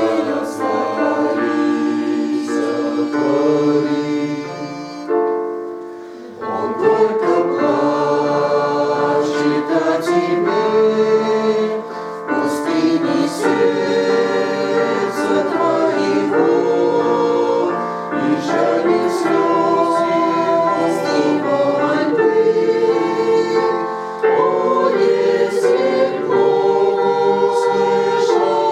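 A choir singing a hymn in held, sustained chords, with a short break between phrases about five to six seconds in.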